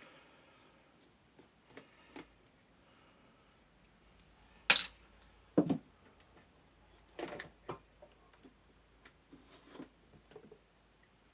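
Scattered clicks and knocks of a small metal desk fan's parts being handled as it is taken apart, with a sharp click near the middle, a duller knock just after, and lighter clicks toward the end.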